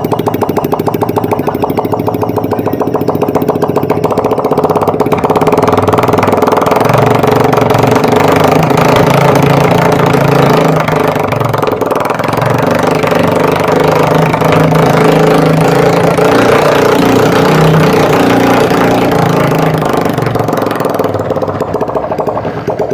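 300cc motorcycle engine running steadily; about five seconds in its sound grows fuller and louder and holds there until near the end.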